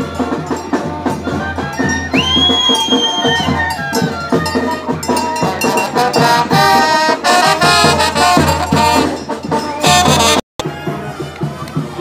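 Loud brass band music with trumpets and percussion, with a high held note about two seconds in. The sound drops out completely for a split second near the end.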